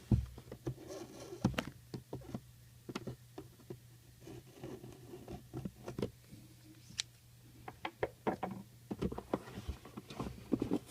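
Irregular light clicks, taps and rustles of a trading card box and its packaging being handled by hand.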